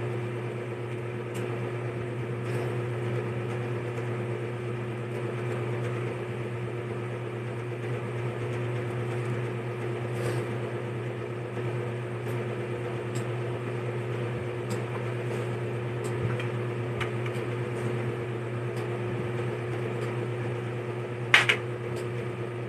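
Steady hum of a small motor running, with faint scattered ticks of eating utensils and one sharp clink near the end.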